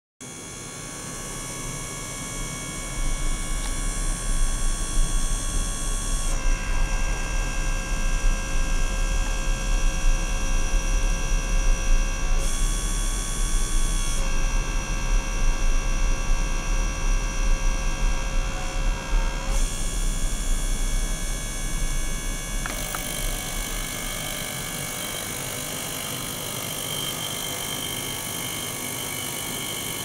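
Small ultrasonic cleaning bath running with a steady hum and several steady high tones that change a few times. From about three seconds in until about twenty-two seconds, a small gear pump's motor runs beside it, circulating water through tubing at an uneven, fluctuating level.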